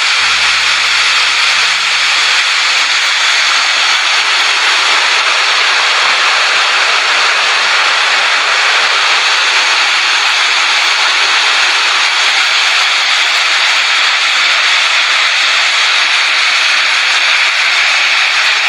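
Steady, loud rushing noise of a typhoon storm.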